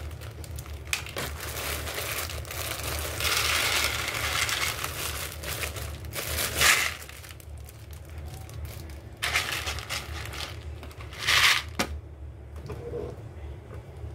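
A thin plastic bag crinkling as dry soybeans are poured from it into a plastic tub, with the beans rattling in. It comes in several bursts and dies away about twelve seconds in.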